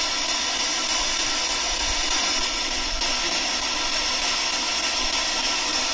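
A steady, even hiss with no distinct events, the background noise of a heavily amplified recording.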